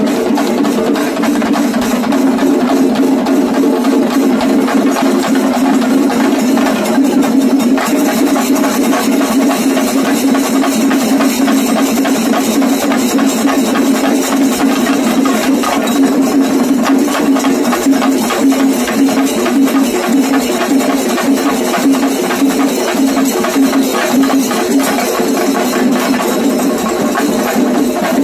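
Loud, dense, fast drumming from a percussion ensemble, with a steady low ringing tone held underneath.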